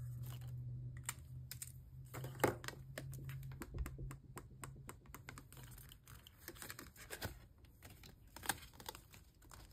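Marker or pen strokes on paper, colouring in a small picture on a printed savings tracker: a run of quick, scratchy ticks and taps. A steady low hum sits under the first half and fades out about halfway through.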